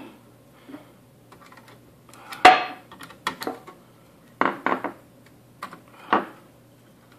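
Scattered sharp clicks and clatters of a screwdriver and hard plastic and metal parts as a laptop-style wireless card is worked free of its slot in an access point's metal case. There are about half a dozen knocks, the loudest about two and a half seconds in and a quick cluster past the middle.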